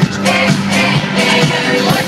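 Live pop concert music played loud through an arena sound system, heard from the audience, with a steady beat and a held bass line.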